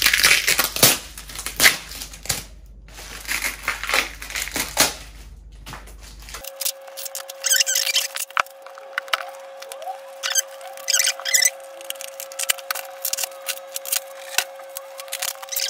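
Parcel wrapping being torn open and crumpled by hand: irregular crackling, rustling and tearing throughout. From about six seconds in, a faint steady tone sits underneath.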